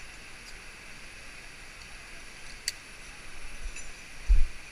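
Steady rushing hiss of a small stream, with a single sharp click partway through and a low thump near the end.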